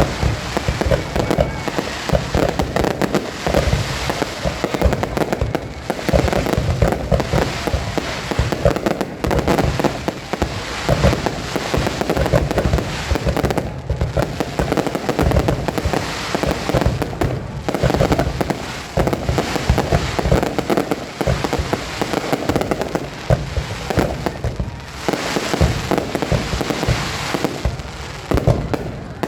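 Fireworks display: a dense, near-continuous volley of aerial shell bursts, with bangs following one another in quick succession amid crackling.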